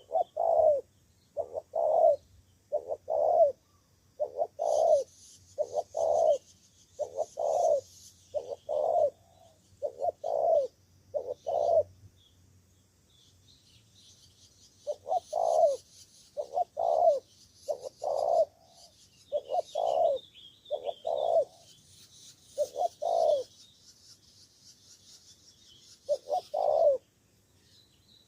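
Spotted dove cooing over and over in short paired notes, stopping for about three seconds midway and then starting again. Small birds chirp faintly and high behind it.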